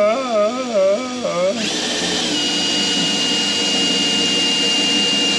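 Cordless drill boring the centre hole in a boat's cabin roof, its motor whining steadily. A man's voice wavers up and down over it for the first second and a half. Then the drill speeds up to a louder, higher steady whine that runs until just after the end.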